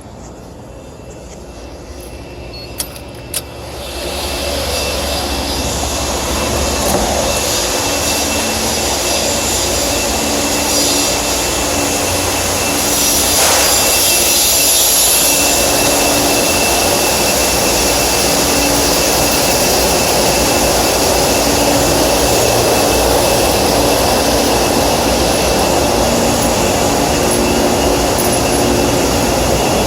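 Steady loud roar of industrial machinery and air-moving equipment, with a low hum and a thin high whine. It grows louder about four seconds in and then holds steady, with a couple of sharp clicks just before.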